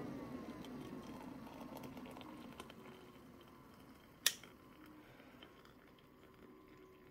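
Freshly boiled water poured from an electric kettle into a glass mug over a tea bag: a faint trickle that slowly fades, with one sharp click about four seconds in.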